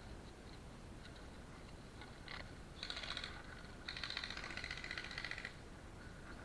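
Airsoft electric gun firing two faint rapid-fire bursts: a short one about three seconds in, then a longer one of about a second and a half.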